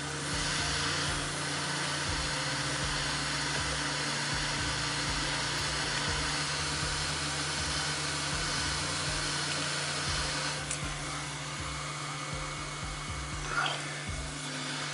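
Hot air rework gun blowing a steady rush of air with a low hum, heating a laptop graphics chip to reflow its solder joints. It eases slightly after about ten seconds.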